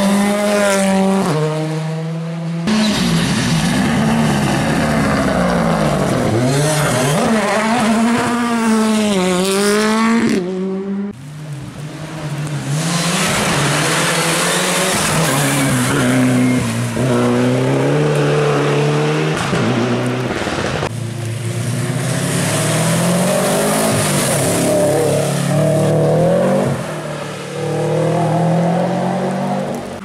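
Turbocharged four-cylinder rally cars, among them a Ford Fiesta and a Mitsubishi Lancer Evolution, passing at speed on wet tarmac in several separate passes. Engine pitch climbs and drops again and again as the drivers rev through the gears and brake.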